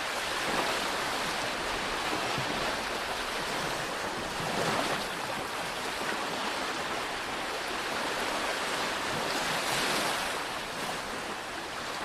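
Sea waves breaking and washing up a sandy beach: a steady surf hiss that swells a little every four to five seconds as each wave comes in.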